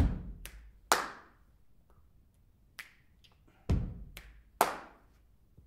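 A sparse percussion pattern: a low thump followed by two sharp clap-like hits, the group repeating about every three and a half seconds, with a small extra tap between.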